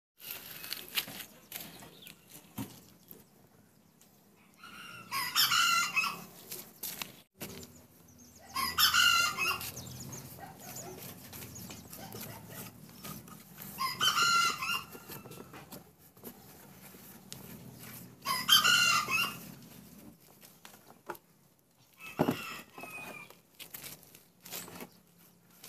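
A rooster crowing four times, each crow about a second and a half long and a few seconds apart, with a shorter call near the end. Faint taps and rustles come between the crows.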